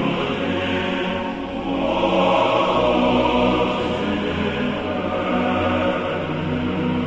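Background music: slow, held chords over low bass notes that change every second or two.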